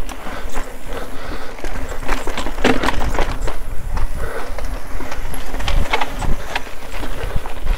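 Mountain bike ridden over wooden bridge planks and rock, heard from a camera mounted on the bike: tyre rumble with frequent sharp knocks and rattles of the bike over the uneven surface, under a heavy low rumble of wind on the microphone.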